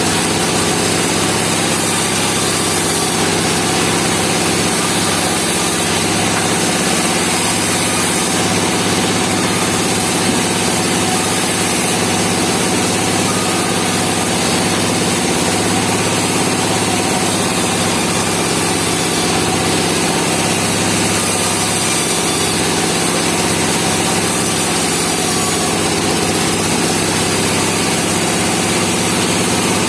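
Bandsaw sawmill running steadily, its machinery holding one even sound throughout with no starts, stops or changes.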